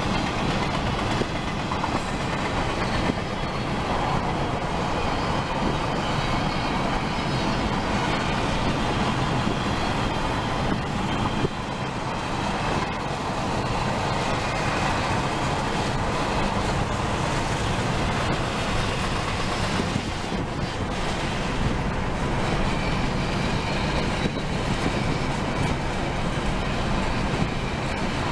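Florida East Coast intermodal freight train of double-stack container well cars rolling past, its wheels on the rails making a steady noise. It is heard from a vehicle driving alongside, mixed with road and wind noise.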